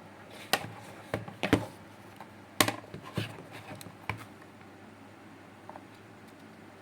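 Scattered clicks and knocks from handling the headset and its cable, about six in the first four seconds, then quiet handling.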